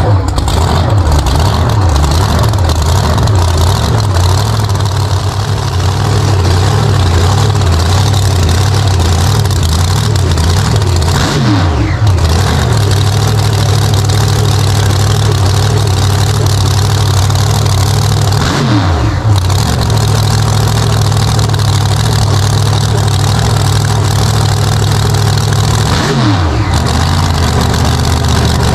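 Big engine of an open-engined hot rod idling loud and lumpy, revved three times, each rev falling quickly back to idle.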